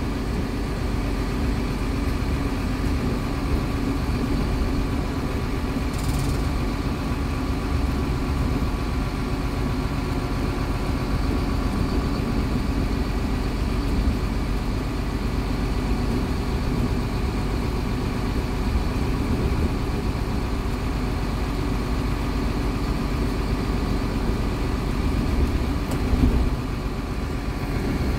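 MAN A20 Lion's City Ü bus engine idling steadily with the bus at a standstill, heard from inside the passenger cabin. A short hiss comes about six seconds in, and a brief louder swell comes near the end.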